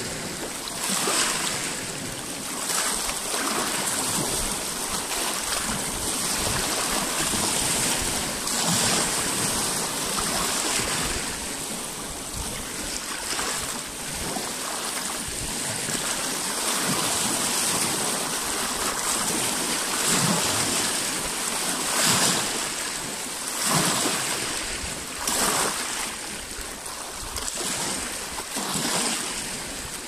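Small lake waves lapping and breaking over a rocky shoreline: a steady wash of water with splashes that swell and fade every couple of seconds.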